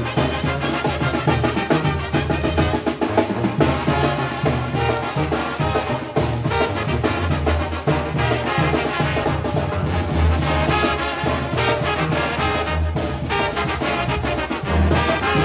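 Mexican banda brass band playing: trumpets and trombones over a tuba bass line, with drums and percussion keeping a steady beat.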